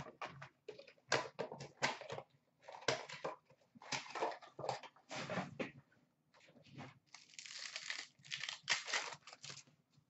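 O-Pee-Chee Platinum hockey card pack wrappers crinkling and tearing as packs are ripped open and handled, in a quick, uneven run of rustles and crackles with short pauses.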